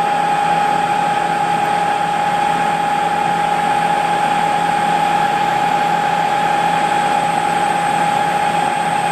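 Harrison M300 lathe, converted to CNC, running with a steady high whine over an even machine noise, with no change in pitch or level.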